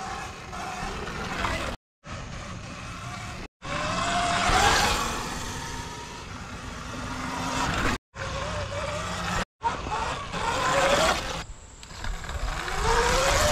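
Sur Ron X electric dirt bike's motor whining, its pitch rising each time it accelerates, over a rushing noise from the ride. The sound is cut into several short clips with brief silent gaps between them.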